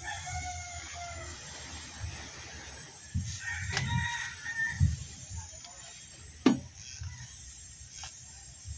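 A bird gives two drawn-out calls, one at the start and a second about three and a half seconds in, with a sharp knock about six and a half seconds in and a low rumble underneath.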